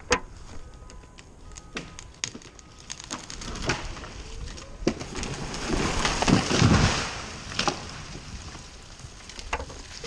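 A felled tree going over: a series of sharp cracks as the hinge wood tears, then a swelling rush of branches through the canopy ending in a heavy thud about six and a half seconds in as the trunk hits the ground.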